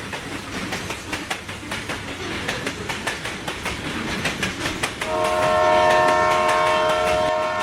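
Train wheels clacking over rail joints in a fast, even rhythm. About five seconds in, the train's horn joins with a long, steady chord.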